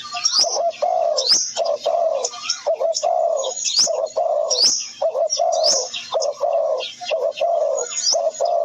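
Birds calling: low notes repeated about twice a second, with quick high chirps overlapping them throughout.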